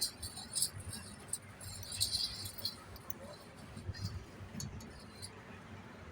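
Scattered light metallic jingles and clinks over a low background rumble.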